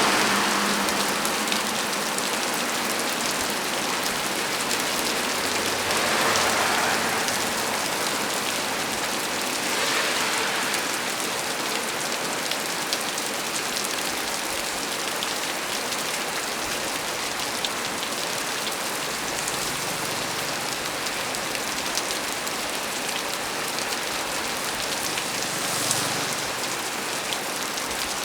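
Heavy rain falling steadily on a small tree, with individual drops ticking through the hiss. It swells briefly a few times.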